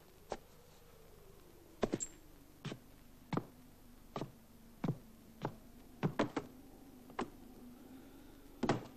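An irregular series of sharp knocks or thuds, about a dozen, some coming in quick clusters, over a faint low hum that slides down in pitch in the first two seconds and then holds steady.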